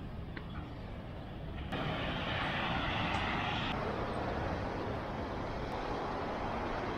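Steady rushing noise of ocean surf breaking on a beach, with a low rumble underneath. It gets suddenly louder and brighter about two seconds in.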